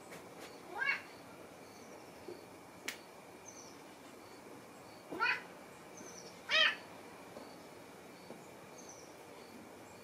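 A domestic cat meowing three times: short calls rising in pitch, one about a second in and two more between five and seven seconds in.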